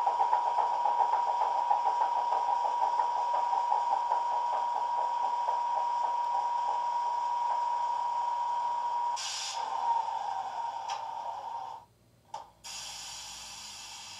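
Sound-fitted OO gauge Heljan Class 25 model playing a recorded Sulzer diesel idling steadily through its small megabass speakers. About nine seconds in comes a short burst of air hiss; the engine sound then dies away and cuts out about twelve seconds in, leaving a brief click and faint hiss.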